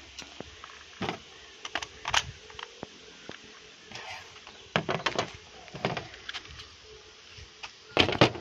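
Clicks, rattles and knocks of an AK-type airsoft replica being handled, with two loud knocks about eight seconds in as it is set down on a table.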